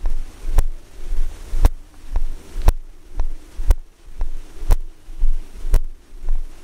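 Steady rhythmic thumps, each with a sharp click, about two a second, every other one louder.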